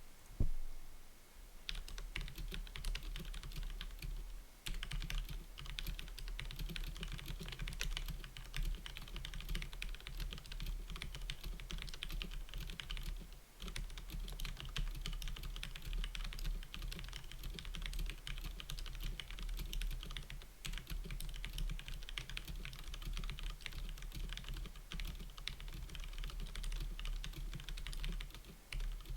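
Fast touch typing on a mechanical keyboard with brown switches: a dense, unbroken patter of keystrokes at about 105 words per minute. It begins a little under two seconds in, after a single knock, and has a couple of brief pauses.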